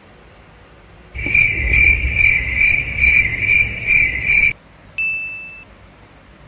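Cricket chirping: a high pulsing trill of about three chirps a second that starts and stops abruptly and lasts some three seconds, followed by a single short high beep.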